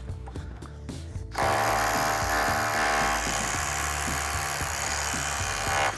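Cordless hammer drill boring into precast concrete, starting about a second and a half in and running steadily until it stops abruptly near the end. Background music plays underneath.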